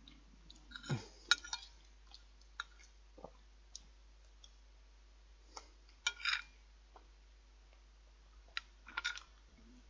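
Scattered light clicks and clinks of cutlery on a plate while eating, in small clusters with the loudest about a second in, around six seconds and around nine seconds.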